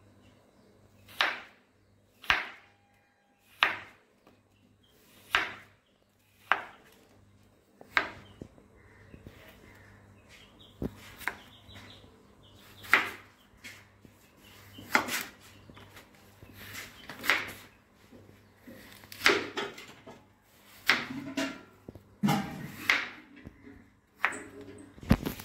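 Kitchen knife cutting an apple on a wooden chopping board: a series of sharp knocks as the blade goes through the fruit and strikes the board, about one every second or two.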